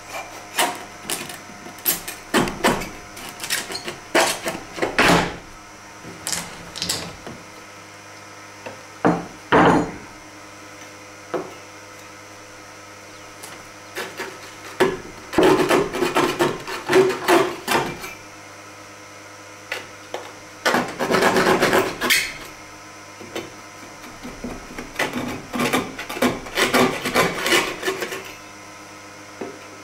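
Hand work on a wooden piece: irregular spells of rubbing and scraping, each a second or two long, with a few sharp knocks of wood. A steady low hum runs underneath.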